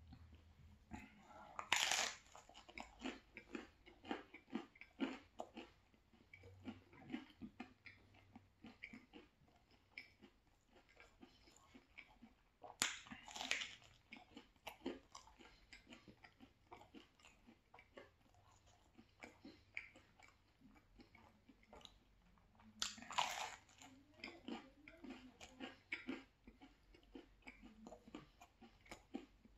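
Bites into a slice of pesto, mozzarella and tomato pizza: three loud crunches about ten seconds apart, near the start, in the middle and near the end, with steady chewing between them.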